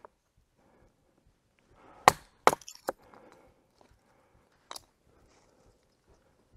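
Batoning: a wooden baton striking the spine of a Joker Nomad knife to split beech wood into kindling. Two sharp knocks about two seconds in, half a second apart, then a few lighter clatters, and one more knock a little over two seconds later.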